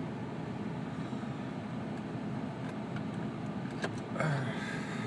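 Steady low hum of a car. There is a sharp click a little under four seconds in, and a short rustling noise just after it.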